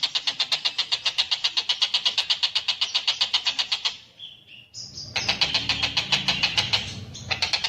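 Tengkek buto (Javan kingfisher) giving a fast rattling call of about ten notes a second. The call breaks off about four seconds in for a few short, higher notes, then resumes with a low rumble underneath.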